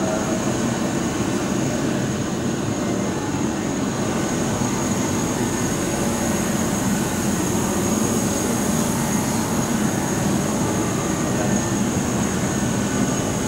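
Francis turbine and generator set running: a steady, even mechanical hum with a thin, constant high whine above it.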